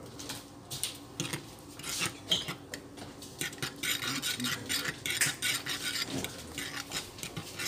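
A utensil stirring and mixing raw eggs: a run of quick clinks and scrapes against the cookware, busier in the second half.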